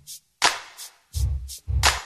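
Background hip hop track: a drum-machine beat of heavy bass kicks and sharp snare or clap hits.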